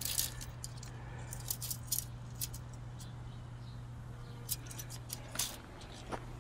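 Scattered light clicks and small rattles from handling and walking on dry, stony dirt, over a steady low hum.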